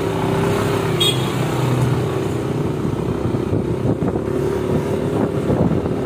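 Motorcycle engine running steadily while riding, heard from on the bike with road and wind noise.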